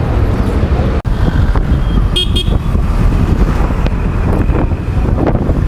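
Motorcycle riding on a road, its engine and road noise a steady rumble, with a short vehicle horn toot about two seconds in.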